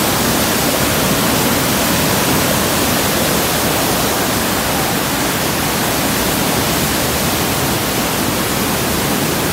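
Floodwater rushing through the open gates of a river barrage: a loud, steady roar of churning water under high pressure.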